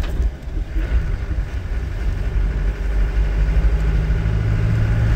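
1993 Land Rover Defender 90's engine running as the truck drives along, a low rumble with a hum that grows stronger about four seconds in.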